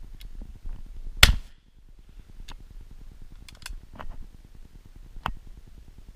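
A single shotgun shot about a second in, a sharp crack with a short tail, followed by a few much fainter clicks and knocks.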